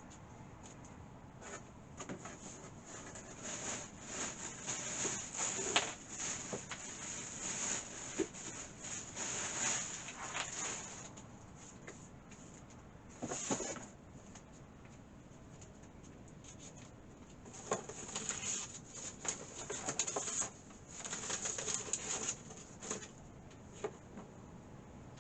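Handling noises while a keyboard and mouse are being connected to the PC: rustling and light knocks in irregular bursts, one short burst in the middle and a second busy stretch after a pause.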